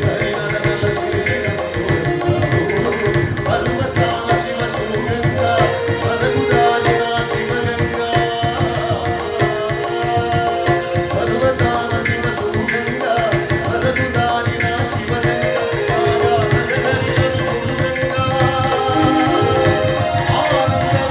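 Men singing a Hindu devotional bhajan into microphones, with percussion keeping a steady beat.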